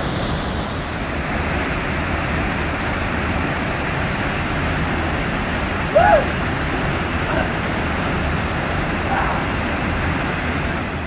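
Waterfall rushing steadily. A few brief faint calls cut through it, the loudest about six seconds in.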